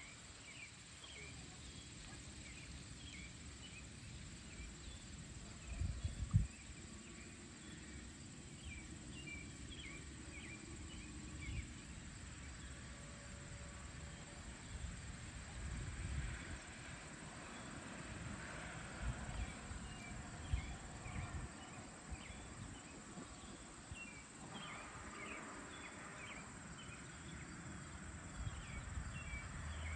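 Summer evening field ambience: a steady high insect drone, with many short bird chirps scattered through it and a gusty low rumble of wind on the microphone. A single low thump about six seconds in is the loudest sound.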